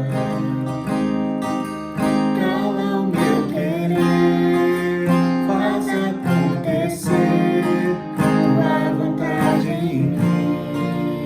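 Music: strummed acoustic guitar playing a slow worship song, with a wavering melodic line above the chords.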